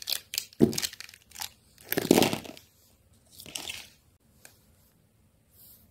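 Plastic sketch pens (felt-tip markers) clicking and clattering against each other and the paper as a handful is gathered up, with the loudest clatter about two seconds in and a softer rustle about three and a half seconds in.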